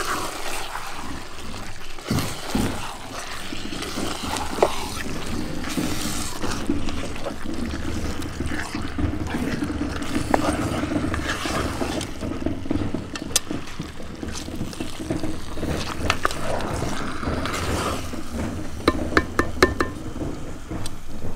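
Chicken sizzling as it fries in a hot cast-iron Dutch pot over charcoal, stirred with a wooden spatula that scrapes and clicks against the pot. Near the end comes a quick run of about five clicks.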